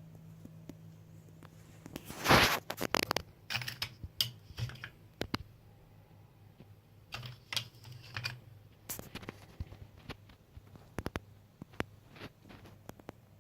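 Irregular light clicks and knocks of small objects being handled, with a louder clatter about two seconds in, over a low steady hum.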